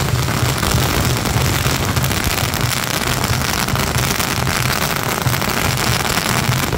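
A long string of firecrackers going off in a continuous rapid crackle of pops, over a steady low rumble.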